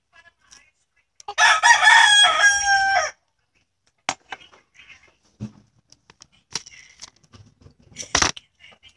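A rooster crows once, a call of about two seconds starting about a second in. Afterwards there are faint clicks and rustles, and a sharp knock near the end.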